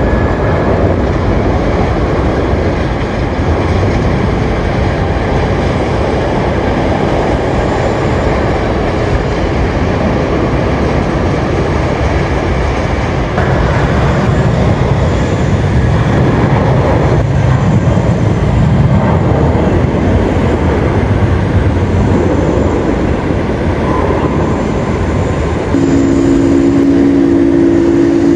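Boeing 777-200ER jet engines running at high thrust on departure: a loud, steady rumble. About 26 seconds in, two steady hums join in.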